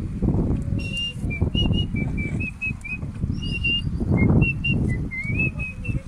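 A string of short, high whistled notes that hop between a few pitches, over a low, uneven rumble.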